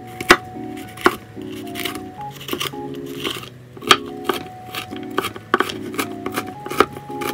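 Hollow-edge kitchen knife chopping a green bell pepper on a wooden cutting board: a dozen or so sharp, irregular knocks of the blade hitting the board. Gentle background music plays under it.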